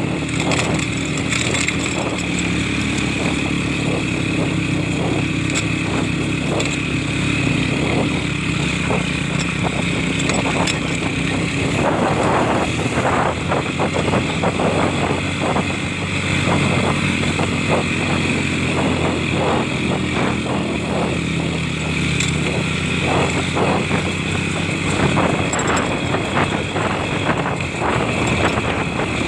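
Motorcycle engine running steadily while riding, with a constant drone and no change in speed.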